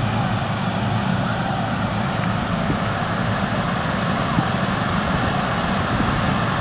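Small engines of riding lawn mowers running in a steady drone as they drive past in a procession.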